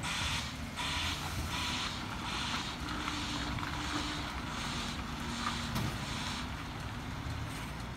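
Recycling garbage truck reversing: its diesel engine runs steadily while a broadband reversing alarm hisses in short pulses about once a second.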